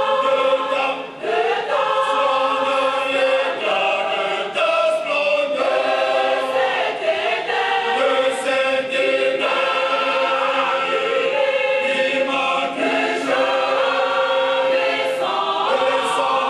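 Women's choir singing a Protestant evangelical hymn, several voices together in long held notes.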